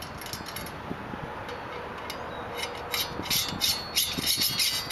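Metal clicking and scraping as a CB antenna's whip is worked and slid in the loosened screw clamp at the top of its coil base, starting a little past halfway and growing busier toward the end.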